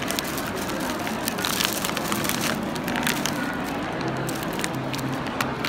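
Thin plastic carrier bag crinkling and rustling as it is handled, in quick irregular crackles, over a steady low hum.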